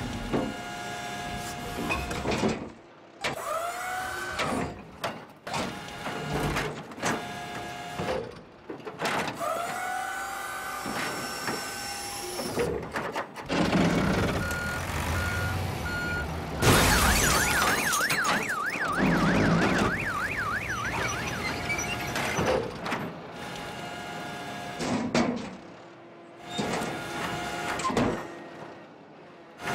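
Cartoon sound effects of a tracked excavator wrecking things: a run of separate crashes and machine sounds broken by short pauses. About two-thirds of the way in, an alarm wails rapidly up and down for a few seconds.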